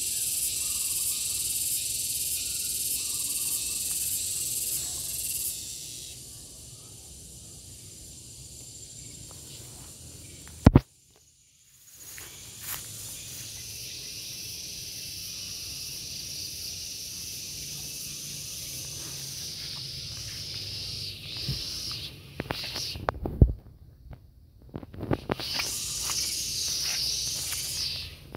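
Cicadas (garengpung) singing in the trees: a steady, high-pitched buzz, loudest for the first five seconds or so and softer after. Twice a sharp knock cuts in, each followed by a second or so of silence.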